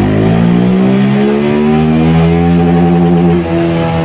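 Motorcycle engine revving up under load on a chassis dynamometer during a power run, its pitch climbing steadily, with a brief dip about three and a half seconds in.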